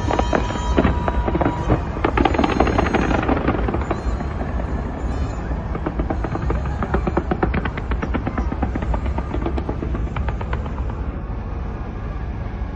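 Fireworks bursting in rapid succession, a dense run of bangs and crackles.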